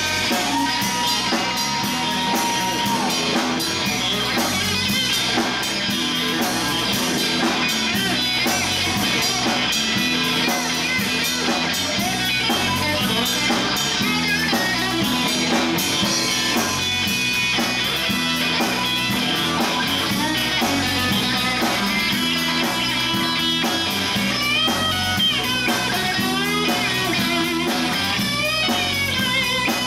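Live rock band playing an instrumental passage: electric guitar lead over electric bass and a drum kit, with bent guitar notes near the end.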